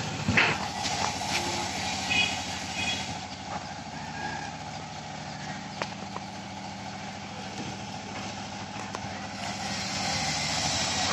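Steady low hum of an engine or motor running, unchanging throughout.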